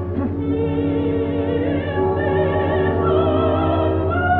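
Operatic singing with orchestra: a voice holds long notes with a wide vibrato, moving to new pitches about two and three seconds in, over a steady low hum.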